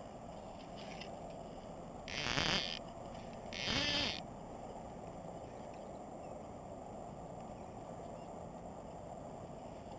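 A fly rod and line swishing through the air twice, about a second and a half apart, as a back cast and a forward cast.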